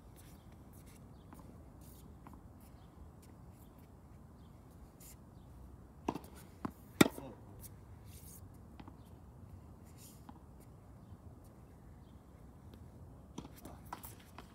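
A few sharp knocks over a low, steady background: a tennis ball bouncing and being struck by a racket. The loudest hit, about seven seconds in, rings briefly, with a few lighter knocks near the end.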